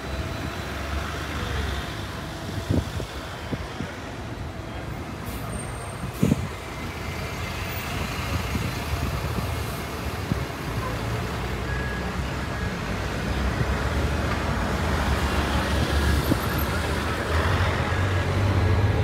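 Road traffic, with a bus engine running as a low drone that grows louder over the last few seconds, and a few sharp knocks in the first half.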